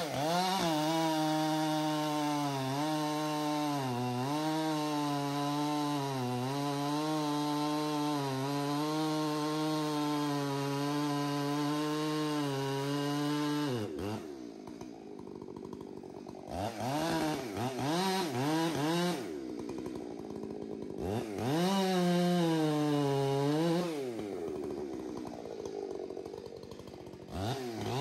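Two-stroke chainsaw held at full throttle under load through a long cut, its pitch dipping slightly as it bites. About halfway through it drops back toward idle, then revs up and down in short blips, with another full-throttle stretch near the end.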